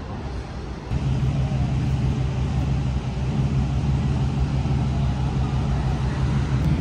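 A car engine idling steadily, a low even hum over street noise, beginning abruptly about a second in.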